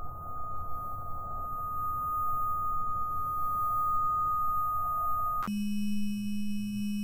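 Steady electronic tone, a single high pitch over a low rumble, that switches abruptly about five and a half seconds in to a low steady hum with faint high tones above it.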